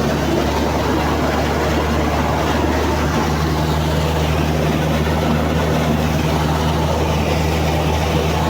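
Amphibious all-terrain vehicle's 109 hp Toyota engine running steadily under load as its wheels paddle it through the water, with a constant rush of noise over a low engine hum.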